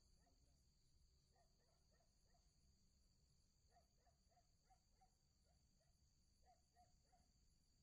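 Faint night chorus of crickets: a steady high trill that does not let up, with short, low chirping calls from other night animals scattered through in small quick groups.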